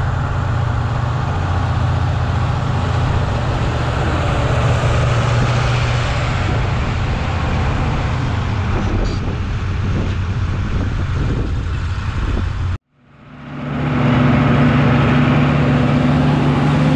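Oliver farm tractor's diesel engine running steadily as the tractor drives. About 13 seconds in the sound cuts out for an instant, then swells back with a steady engine drone.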